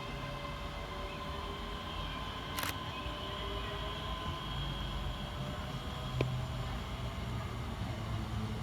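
Scotrail Class 320 electric multiple units pulling away, with a steady electrical whine over a low rumble. Two sharp clicks come about two and a half seconds in and again about six seconds in.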